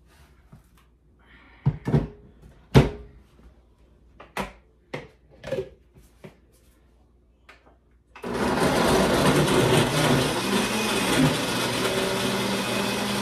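A few sharp knocks and clatters as the blender jar is loaded and handled. About eight seconds in, a countertop blender's motor starts suddenly and runs steadily at high speed, blending chunks of pineapple and cucumber.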